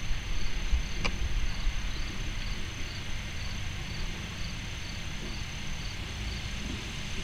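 Low rumble, loudest at first and easing off, under insects chirping in a faint high rhythm about twice a second with a steady high whine; a short sharp click about a second in.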